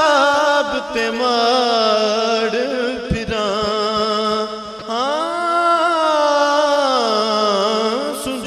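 Sufi kafi singing: one voice holds long, wavering, ornamented notes, rising to a higher phrase about five seconds in and falling again near the end.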